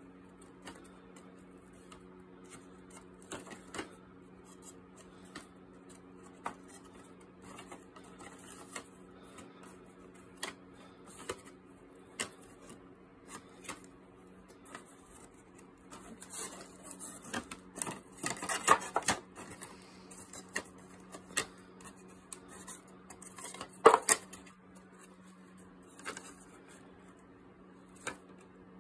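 Painted wooden panels knocking and clattering against each other and the plywood crate as they are flipped through by hand: scattered single knocks, with a busier run of clatter a little past halfway and one sharp loud knock later on. A steady low hum runs underneath.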